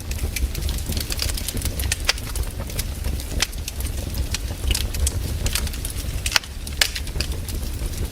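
Wood campfire burning, crackling with irregular sharp pops and snaps several times a second over a low steady rumble.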